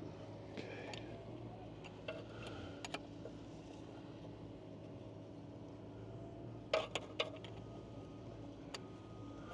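Faint clicks and clinks of metal parts and hand tools being handled during repair work: a few light clicks early on and a quick cluster of sharper clicks about seven seconds in. A steady low machinery hum runs underneath.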